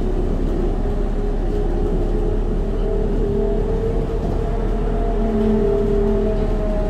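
Škoda 14 Tr trolleybus standing still with its onboard auxiliary machinery running: a steady hum with several tones that drift slightly up and down in pitch.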